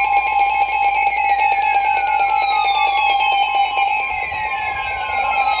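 NOAA Weather Radio's warning alarm tone, a steady single tone near 1050 Hz, signalling that a warning is about to be read, here a severe thunderstorm warning. A second steady tone sits just below it, and twice a faint whistle falls in pitch over about two seconds.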